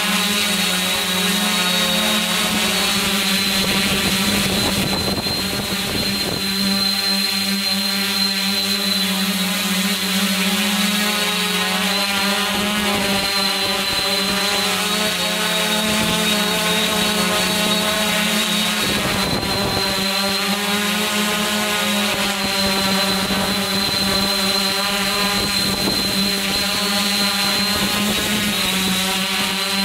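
Heli-Eye multirotor's electric motors and propellers running in flight, heard close from the camera carried on the craft: a steady hum with a thin high whine above it, the pitch wavering slightly as the motors adjust their speed.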